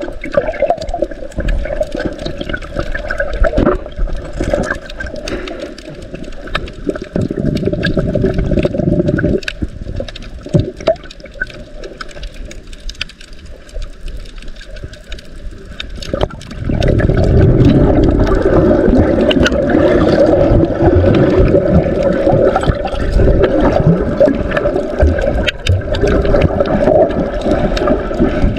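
Muffled rushing and gurgling of water picked up by a submerged camera, with many scattered clicks and crackles; it grows louder a little past the middle.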